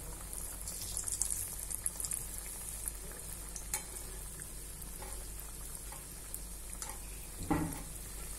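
Shankarpali dough squares deep-frying in hot oil, a steady sizzle and crackle, stirred with a wire-mesh skimmer. A few light knocks come through it, the loudest about seven and a half seconds in.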